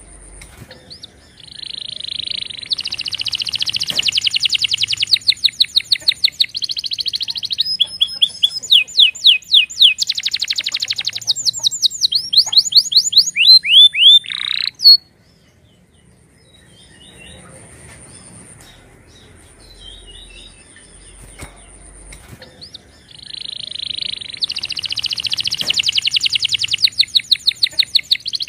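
Domestic canary singing: a long song of rolling trills, each a fast run of repeated notes, changing from tour to tour and ending in a few sharp down-sweeping notes. After a pause of several seconds the song starts again near the end.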